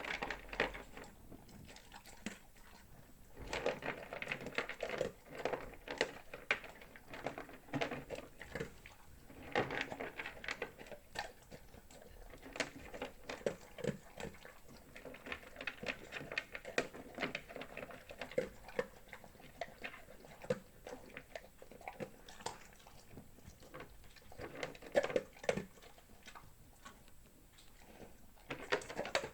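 A dog eating dry kibble: irregular crunching and clicking as the kibble is chewed, coming in clusters with short pauses between mouthfuls.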